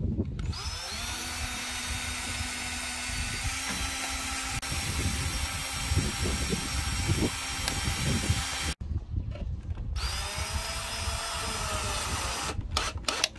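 Cordless drill running as it drills into the base of an upturned basin bowl: a long steady whine, a short stop a little under nine seconds in, then a shorter run whose speed rises and falls.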